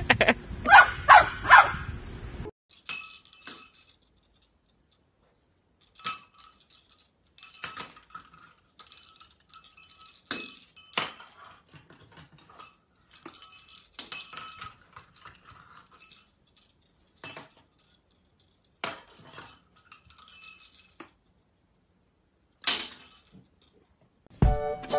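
Small bells hanging from a door handle jingle in short bursts, again and again, as a puppy paws and jumps at them.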